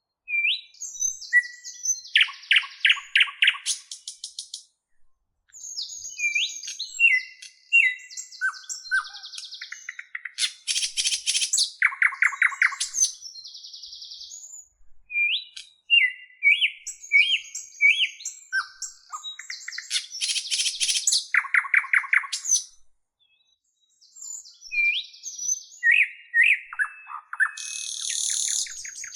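A bird singing a varied song of short whistled notes and fast rattling trills. The same run of phrases comes round about three times, with short pauses between.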